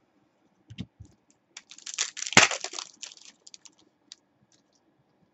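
Foil wrapper of a trading card pack crinkling and tearing open: a few clicks, then a dense run of crackles that peaks about two and a half seconds in and thins out into scattered ticks.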